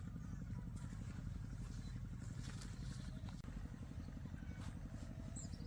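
A small engine running steadily, a low rumble with a fast, even pulse.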